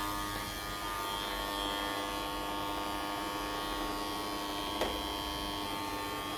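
Xiaomi Mijia 1C robot vacuum-mop running with a steady buzzing whine, the noise its owner reports as a problem. One short click about five seconds in.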